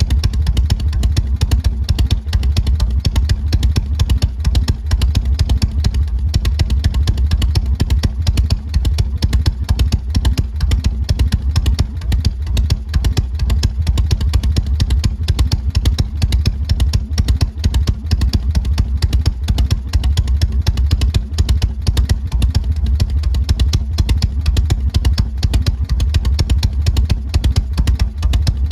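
Harley-Davidson Shovelhead V-twin engine and exhaust running steadily at a constant speed, an even, unbroken stream of firing pulses.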